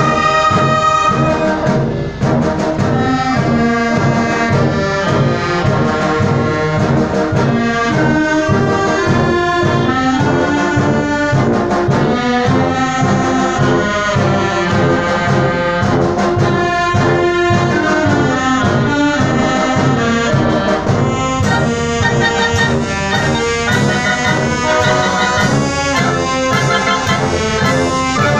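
Concert wind band of brass and woodwinds (flutes, clarinets, saxophones, trumpets, trombones and sousaphones) playing a piece with held melody notes over a steady beat in the low brass.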